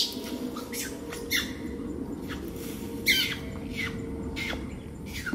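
A series of short animal calls, each falling quickly in pitch, coming about once or twice a second over a steady low background hum.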